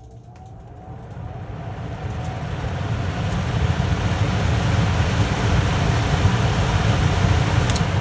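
Newly fitted replacement blower motor in a Heil gas furnace spinning the blower wheel up to speed on a test run: a rush of moving air with a low rumble that builds over about three seconds, then holds steady and strong. The motor starting and moving plenty of air shows the motor swap has cured the dead blower.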